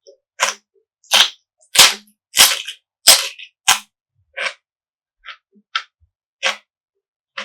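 Close-miked chewing of crisp food, about ten sharp wet crunches at a steady pace of roughly one and a half a second, with silence between; the later crunches are softer.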